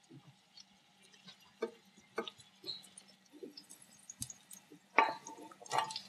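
Garlic cloves in olive oil heating in a pan, with scattered small pops and ticks as the oil begins to bubble. Two louder short bursts of noise come near the end.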